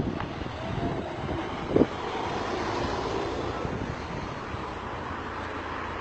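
Outdoor street ambience: steady traffic noise with wind buffeting the microphone.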